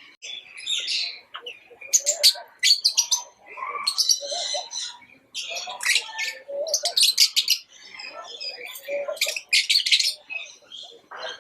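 Lovebirds chattering: a busy, unbroken run of quick, sharp, high-pitched chirps and squeaks with only brief gaps.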